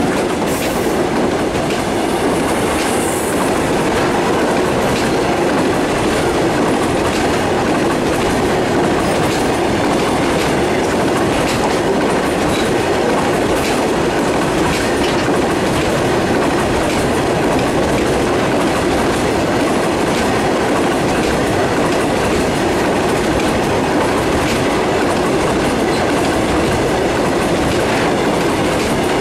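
Freight train wagons rolling past close by at speed: a steady, loud rumble of steel wheels on the rails, with scattered clicks of clickety-clack.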